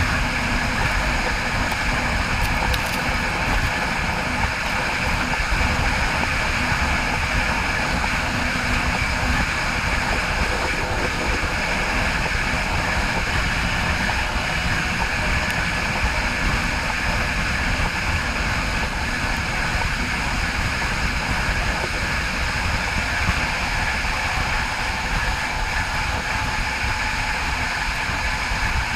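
Train wheels rolling on the rails at speed: a steady rushing noise with a thin, steady high whine over it.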